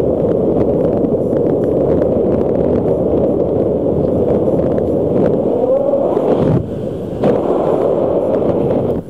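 Wind buffeting the microphone of a paraglider pilot's camera in flight: a steady low rush of airflow that drops briefly about six and a half seconds in.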